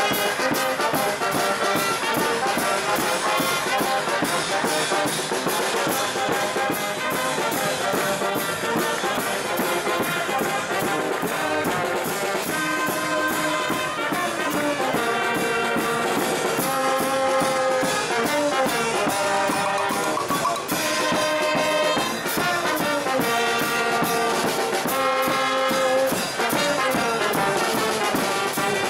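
A street brass band playing, with trumpets and trombones over a steady drum beat.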